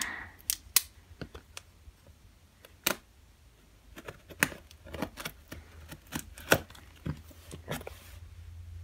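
A folding pocket knife being opened, then its blade slitting the packing tape on a small cardboard box, with the box handled: a scatter of sharp clicks, taps and short scrapes at irregular times, busiest in the second half.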